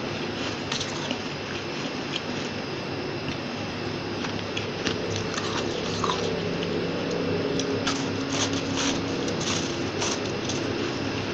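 Biting into a chunk of fluffy freezer frost: short, crisp crunches, coming thicker in the second half, over a steady background hiss.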